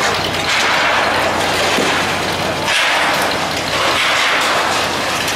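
Concrete rubble crashing and crumbling down from a silo under demolition, in three rushing surges, over the steady low running of a crawler crane's diesel engine.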